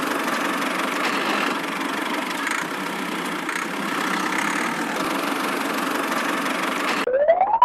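A miniature tractor's small engine running steadily. Near the end it cuts off suddenly and a single whistle-like tone rising in pitch takes over.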